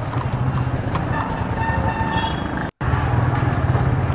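Motorcycle engine running at riding speed with wind rumble on the bike-mounted microphone and street traffic around it. The sound cuts out for an instant about two-thirds of the way through.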